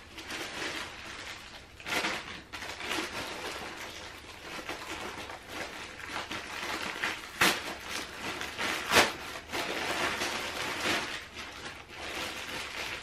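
Rustling and crinkling of clothes and bags being handled while packing a suitcase, with a few sharp knocks, the loudest about seven and a half and nine seconds in.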